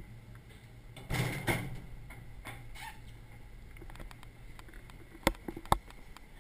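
An interior door opening by its lever handle: a short rattle and thump about a second in. Near the end come two sharp knocks about half a second apart, over a steady low hum.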